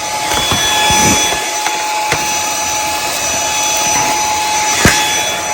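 Dyson V8 Extra cordless handheld vacuum running steadily with a high motor whine, with a few sharp knocks along the way.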